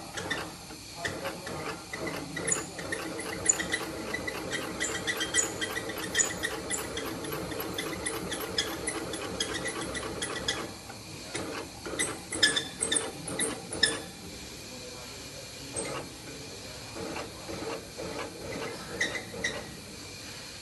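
Industrial sewing machine with a roller presser foot stitching a leather boot upper: it runs steadily for most of the first half, stops, then sews again in short runs with clicks and pauses.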